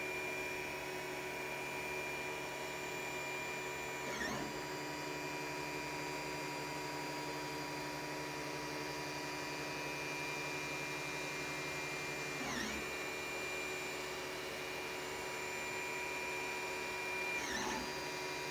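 FDM 3D printer's stepper motors whining steadily in several fixed tones as the print head lays down long straight lines of PLA for the first layer. The pitch dips briefly and comes back three times as the head slows to change direction at the corners.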